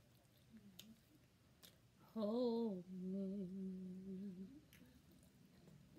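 A woman humming a phrase of a song: a short wavering note that drops into a lower note held steady for about two seconds.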